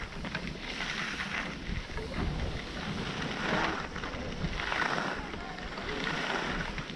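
Wind buffeting the microphone while riding down a groomed snow slope, with the hiss of edges scraping over the snow swelling every second or so through the turns.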